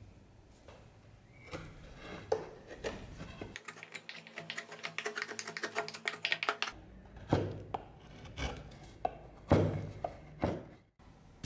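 Hand woodworking on a dry beech axe handle: a run of quick rubbing strokes, several a second, then a few sharper separate cuts as a gouge notches the wood.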